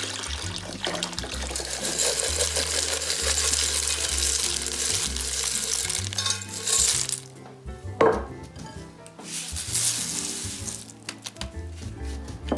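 Chicken broth poured from a carton into a hot pan of tomato sauce and chicken, splashing and sizzling for several seconds. Freeze-dried peas and rice are then tipped in, with a sharp splash about eight seconds in. Background music plays throughout.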